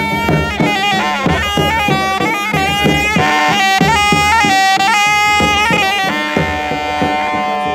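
Hausa algaita shawm playing a fast, piercing melody, then holding one long note near the end, over strokes of a double-headed rope-tensioned drum.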